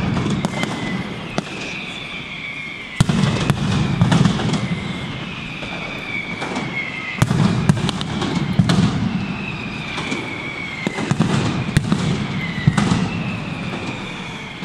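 Mascletà firecrackers going off in uneven volleys of sharp bangs. Whistling fireworks glide down in pitch over them, and bursts of deep rumbling break in about every four seconds.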